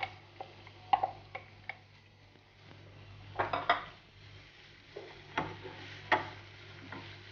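A wooden spoon knocking and scraping chopped onion out of a plastic container into a frying pan, then working the pan: irregular sharp clacks and clinks of utensil against pan and container.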